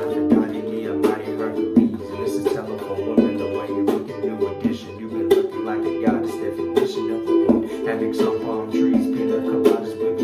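Ukulele being strummed: a steady, rhythmic chord pattern with sharp, evenly repeating strum strokes.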